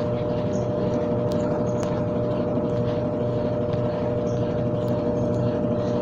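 Brastemp 12 kg top-load washing machine on its spin cycle: the motor and spinning basket run with a steady hum and two held high notes.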